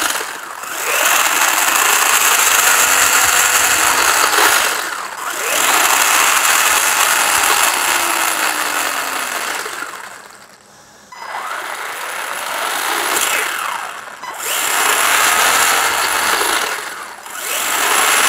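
MJX Hyper Go H16 RC car's motor and gear drivetrain whirring with the wheels spinning free, held close to the microphone, in about five throttle runs whose pitch rises and falls, with short drops between them. The gear noise is what commenters took for gears that are nearly worn out.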